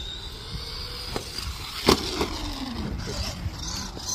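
Arrma Gorgon RC monster truck's brushed electric motor and drivetrain whining, rising and falling in pitch as the truck speeds up and slows. The driver takes the whine to be a sign of an over-tight pinion-to-spur gear mesh. Two sharp knocks, about a second in and, louder, about two seconds in.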